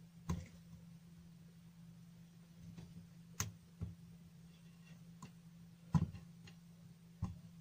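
About six faint, sharp clicks of multimeter test probe tips tapping against component legs on a power-supply circuit board, as the diode-bridge diodes are checked one by one for a short; the loudest comes about six seconds in. A low steady hum sits underneath.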